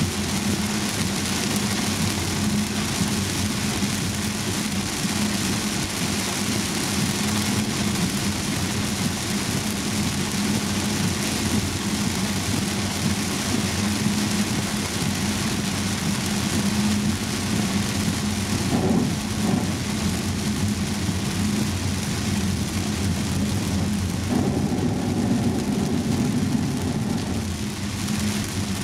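Heavy rain beating on a car's roof and windscreen, heard from inside the cabin, with tyres hissing on the flooded road and a steady low drone from the moving car.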